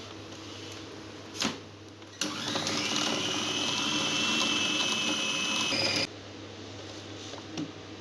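Electric kitchen grinder run in one burst of about four seconds, its motor whine rising briefly as it spins up, then holding steady until it cuts off. A short knock comes just before it starts.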